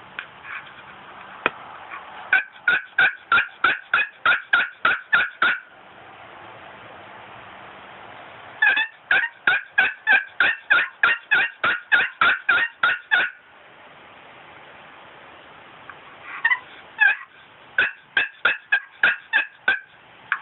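Turkey yelping in three long, even runs of short calls, about four a second, each run lasting several seconds with pauses between.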